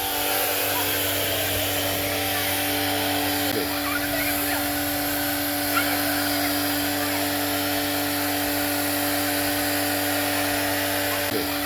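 Tacklife electric pressure washer running steadily: a constant motor hum with the hiss of the water jet spraying.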